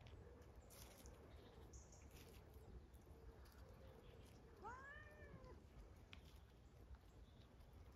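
A domestic cat gives a single meow about halfway through, its pitch rising and then falling. A few faint light ticks are also heard.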